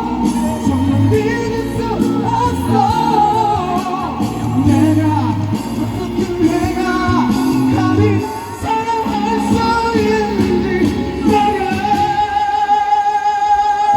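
Busker singing a pop song live through an amplifier over backing music, holding one long note near the end.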